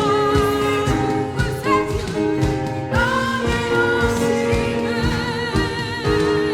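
A small church vocal ensemble singing a Christmas carol in held notes with vibrato, over accompaniment with a steady low beat.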